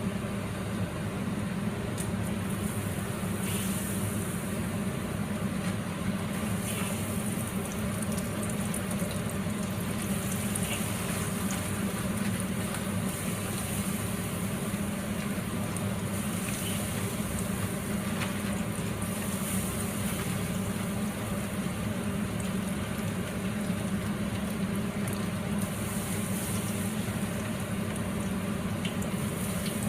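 Battered chicken pieces frying in oil in a wok, an even sizzle that holds steady throughout, over a steady low hum.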